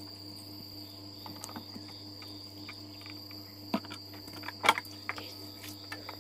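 A steady high insect trill in the background, with a few sharp knocks of a mesh strainer against a steel bowl as washed sesame seeds are tipped out, the loudest about four and five seconds in.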